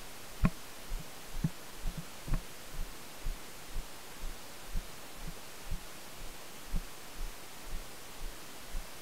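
Walking footsteps thudding through a body-worn camera, about two a second, over a steady hiss.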